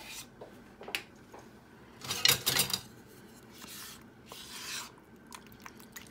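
Sour cream being scraped out of a plastic tub into a glass bowl with a utensil: a few light clicks, then a loud scraping clatter about two seconds in, followed by softer scraping.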